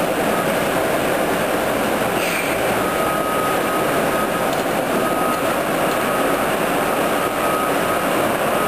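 O-M vertical turret lathe running under power: the table turning with a large ring on it while the side head traverses, giving a steady mechanical drive noise. A thin high whine comes and goes over it every second or two.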